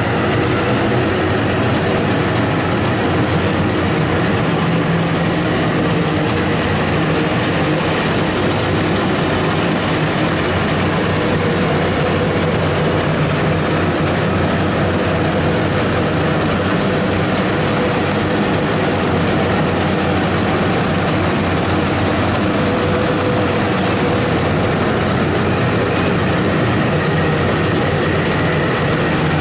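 Rice combine harvester running steadily: a loud, even engine drone with machinery noise that does not change.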